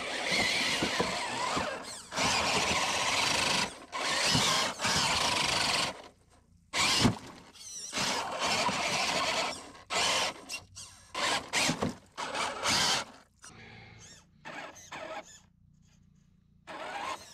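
Redcat Gen8 RC crawler's electric motor and gearbox whining in bursts of a second or two as the throttle is worked, crawling through slushy mud. The bursts grow fainter and choppier near the end.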